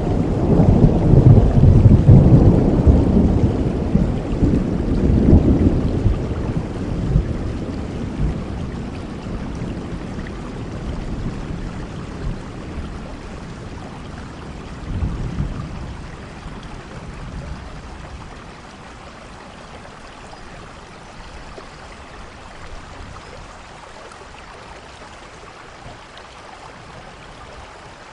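Thunderstorm: steady rain with thunder rumbling, a long low rumble that is loudest at the start and fades over the first several seconds, a shorter rumble about fifteen seconds in, then rain alone.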